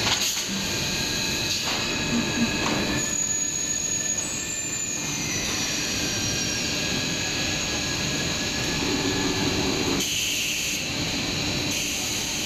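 Four-screw 2000 mm cast stretch film machine running: a steady machine din carrying several high, steady whining tones. About four seconds in, one of the high whines glides down in pitch, and a few faint clicks come and go.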